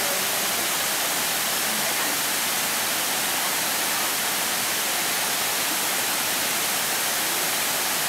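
Waterfall cascading over limestone tiers into pools, a steady, even rush of water.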